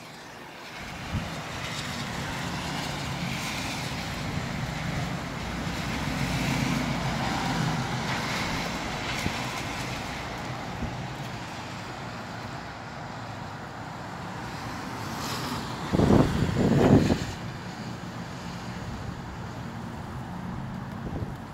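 Steady rush of wind and rain during a windy shower, with two loud low blasts of wind on the microphone about sixteen seconds in.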